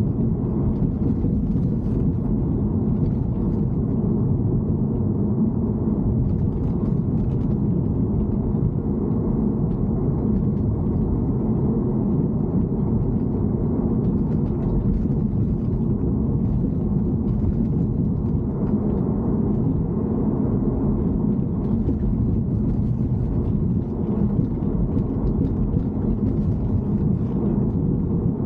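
BMW E90 3 Series running with a steady low rumble, with faint irregular ticks above it.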